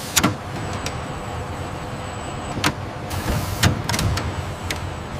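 Industrial robotic arm moving: a steady motor whir with a thin high whine at times, broken by several sharp mechanical clicks and clanks.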